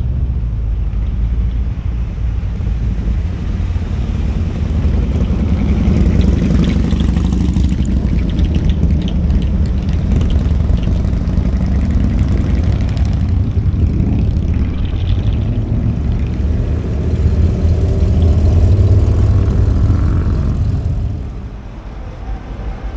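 A stream of cars driving past one after another, a continuous deep engine rumble with tyre noise on asphalt. The rumble falls away about 21 seconds in.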